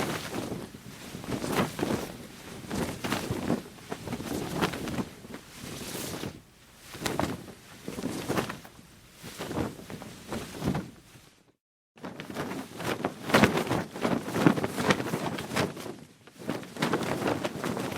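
Fabric flapping in irregular surges of rustle and sharp snaps. About two-thirds through it stops dead for a moment, then a second take starts with louder, busier flapping.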